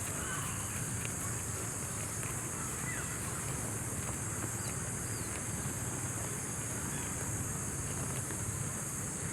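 Outdoor rural ambience: a steady high insect drone with a low background rumble and a few faint, brief bird chirps.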